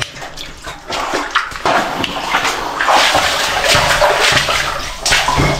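Shallow water sloshing and splashing underfoot as someone wades through a flooded underground tunnel, in uneven surges.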